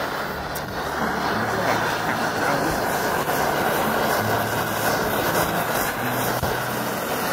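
Handheld butane blow torch on a gas canister, burning with a steady jet hiss as its flame heats an oyster in the shell.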